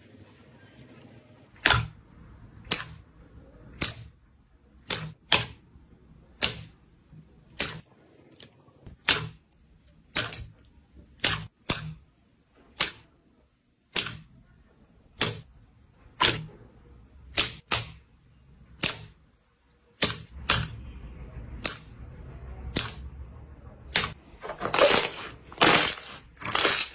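Slime being pressed and played with, giving sharp popping clicks about once a second. Near the end these crowd into denser crackling crunches.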